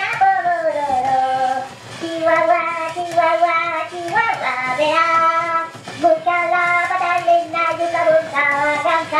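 Christmas Minion animatronic singing a song through its built-in speaker in a high-pitched Minion voice, held melodic notes one after another.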